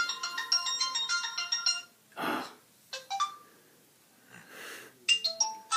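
Mobile phone ringtone playing through the phone's speaker: a fast run of short beeping electronic notes for about two seconds, a few more notes with quick downward slides about three seconds in, and another quick run near the end. A short breathy burst comes between the first two runs.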